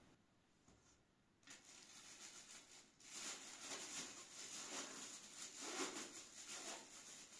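Thin plastic gloves crinkling, then gloved hands kneading minced meat and grated onion in a metal bowl: a steady run of wet squishes and plastic rustling that starts about a second and a half in and grows louder about halfway through.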